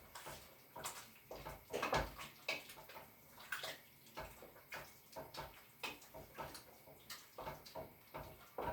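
Chicken stew being stirred in its pot just after a cornflour slurry has gone in: irregular sloshing strokes of the liquid, one or two a second, as the broth begins to thicken.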